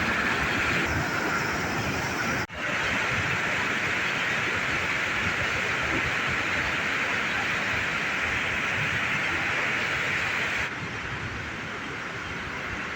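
Steady rushing of floodwater pouring out of a reservoir's spillway gates. It breaks off for an instant about two and a half seconds in and is a little quieter near the end.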